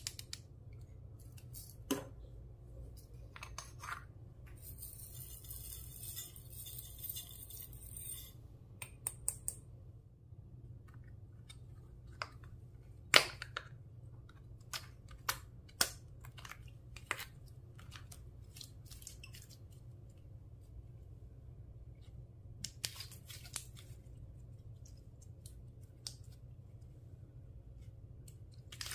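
Clear slime being handled and mixed by hand: irregular sharp sticky clicks and snaps, the loudest about halfway through, with a few seconds of high hissing rustle near the start.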